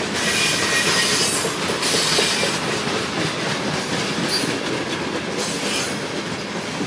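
Loaded coal hopper cars rolling past close by, a steady rumble and clatter of steel wheels on the rails, with faint high wheel squeals now and then.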